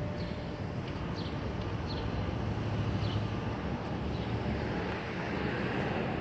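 Downtown traffic ambience: a steady rumble of passing vehicles that swells about halfway through, with a few short high chirps in the first few seconds.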